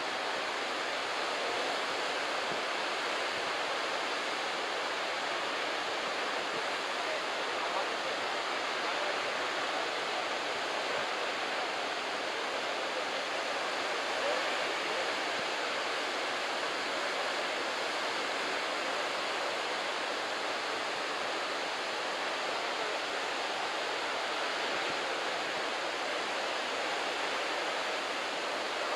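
Surf from a head-high typhoon swell breaking along the beach, a continuous, even rush of white water with no single wave standing out.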